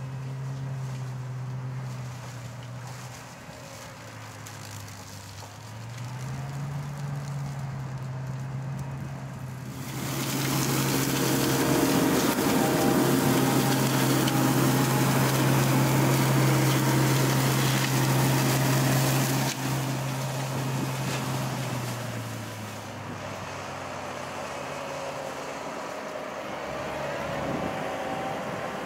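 Mecalac wheeled excavator running a hydraulic Herder flail mower head on its boom, cutting grass on a ditch bank: a steady machine drone that dips in pitch and comes back up a few seconds in. For about ten seconds in the middle a much louder rushing noise of the flail cutting takes over, then the drone settles lower in pitch near the end.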